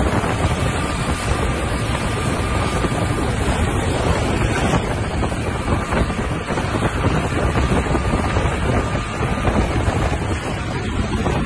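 Heavy wind buffeting the microphone on a fast-moving speedboat, over steady engine and water rush, with a faint thin whine that comes and goes.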